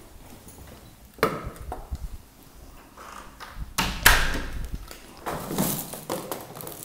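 Handling noise: a few sharp knocks and clatters, the loudest about four seconds in, followed by rustling as the handheld camera and things around it are moved.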